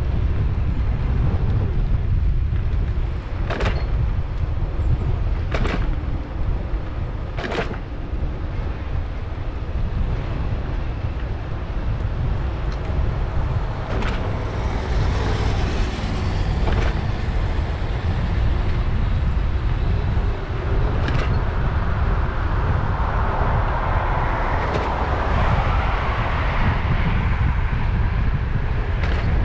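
Steady low wind rumble on a bicycle-mounted camera's microphone while riding, with a handful of sharp clicks and knocks from the bike over cracks in the path. A motor vehicle passes on the road alongside, swelling up and fading a little before the end.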